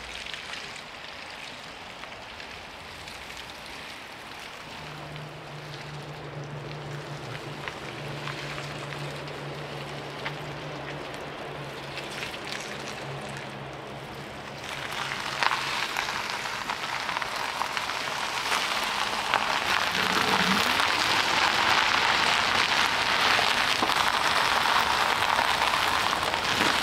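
Steady rain falling, turning louder and denser about fifteen seconds in, with a faint low hum under it in the first half.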